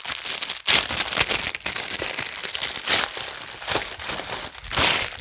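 Packaging crinkling and rustling as it is handled and pulled off an item being unwrapped, with several louder crinkles along the way.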